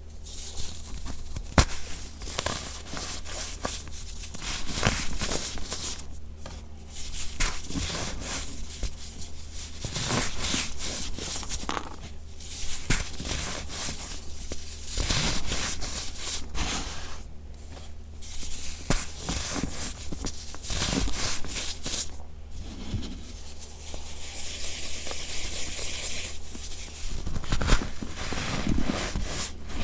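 Gritty baking soda being crushed and crumbled, making a crunching, squeaky sound. It comes in repeated bursts of a few seconds each, with short pauses between.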